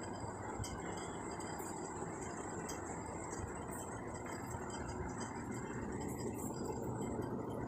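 Steady low rumbling background noise with a few faint, steady high-pitched tones above it, unchanging throughout.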